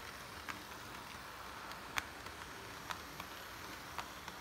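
Model train locomotives and freight cars rolling past on the track: a steady faint hiss of motors and wheels, with sharp irregular clicks from the wheels on the rails, the loudest about two seconds in.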